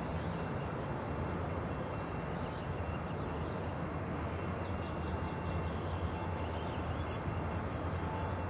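CN intermodal freight train's cars rolling past at a distance: a steady low rumble.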